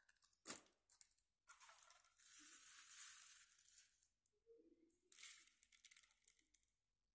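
Faint crinkling and rustling of thin plastic in three bouts, as small polystyrene foam balls are poured from their plastic packet into a cut plastic bottle and settled by hand.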